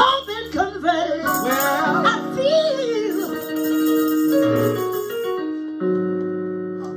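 A woman singing a gospel line with vibrato over keyboard accompaniment, giving way about halfway through to held keyboard chords.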